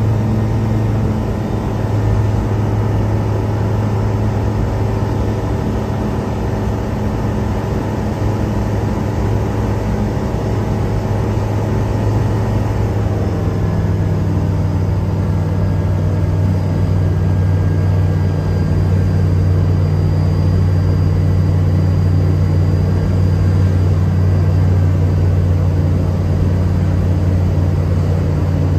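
Light aircraft's piston engine and propeller droning steadily in flight, heard from inside the cockpit. About halfway through, the engine note shifts lower and stays there.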